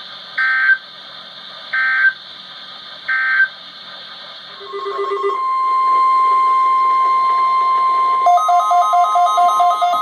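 Three short EAS/SAME digital data bursts about a second and a half apart: the end-of-message squawks closing a National Weather Service warning on NOAA Weather Radio. About five seconds in, the steady NOAA Weather Radio warning alarm tone begins, and a faster alternating two-note beeping joins it near the end.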